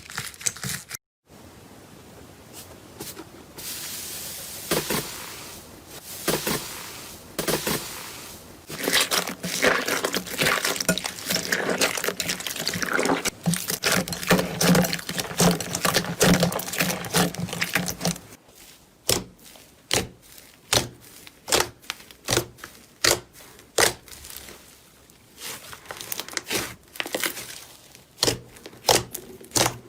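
Slime being played with by hand, with dense crackling and squishing. In the second half it changes to a run of separate sharp pops or clicks, about one or two a second.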